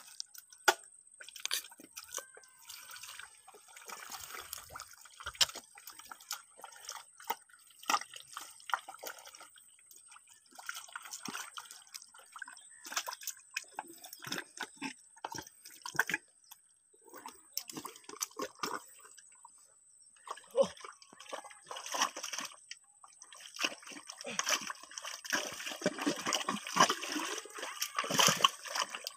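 Wet mud and shallow muddy water stirred by hands and feet: irregular squelching, sloshing and dripping as someone wades and digs by hand in a mud channel, busier and louder for the last few seconds.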